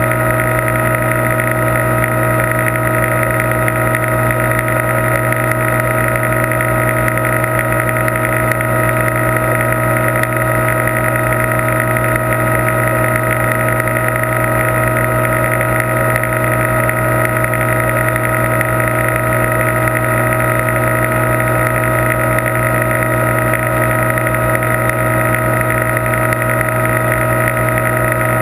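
Aquarium tank's pump and aeration machinery humming steadily: a constant, unchanging drone with a deep hum and several fixed higher tones.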